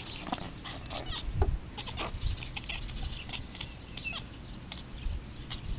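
Faint animal calls: many short, high chirps scattered throughout and a few bleat-like cries, with soft rustling and a couple of dull thumps about a second and a half and two seconds in.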